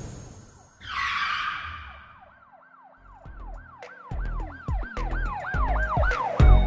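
Intro sound effects: a whoosh about a second in, then a siren-like wail that rises and falls about three times a second, with deep bass hits coming in under it and a loud hit near the end.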